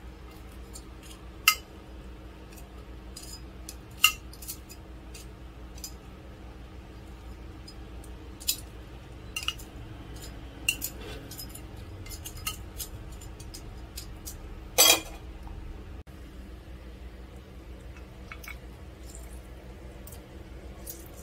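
Metal tongs clinking and tapping against ceramic plates as fried dumplings are picked up and moved: scattered sharp clinks, the loudest a quick double knock about fifteen seconds in, over a low steady hum.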